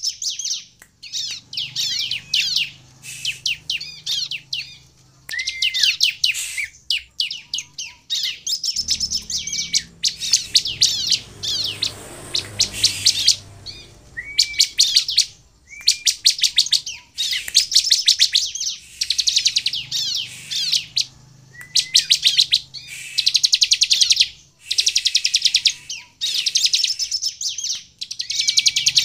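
Bar-winged prinia (ciblek) in full song: rapid bursts of high chirps and fast trills, each phrase a second or two long with short gaps between, some opening on a short steady whistle.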